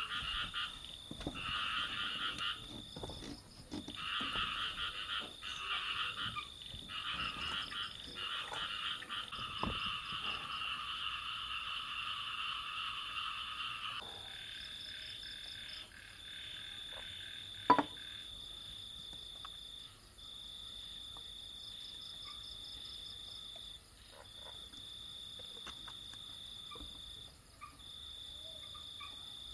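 Night chorus of frogs: rapid pulsed croaking calls in bursts for about the first half, over a high steady trill that carries on alone in bouts of three to four seconds with short gaps. One sharp click about eighteen seconds in.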